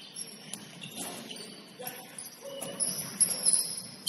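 Basketball shoes squeaking on a hardwood gym floor during play: a run of short, high squeals that shift in pitch. A few sharp knocks about three seconds in, likely the ball bouncing.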